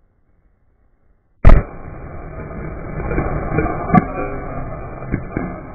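Automotive airbag inflators firing under and inside a porcelain toilet: one very loud, sharp bang about a second and a half in, after near silence. A loud noisy rush follows, broken by scattered knocks, one sharp crack a few seconds in.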